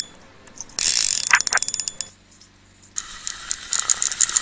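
Daiwa RX 4000 spinning reel clicking as a hooked fish is played on a bent rod. A loud burst of clicking comes about a second in, then a run of rapid, lighter ticks near the end.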